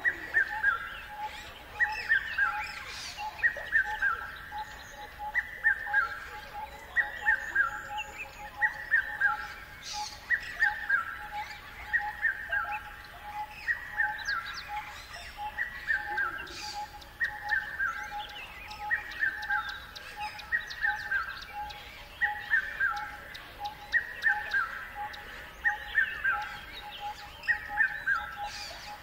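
Birdsong: a short, descending chirping phrase repeats about once a second, over a faint, rapid pulsing tone.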